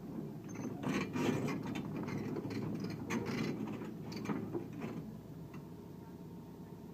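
Excavator engine running steadily under a string of metal clanks and rattles for the first five seconds or so, which then die away.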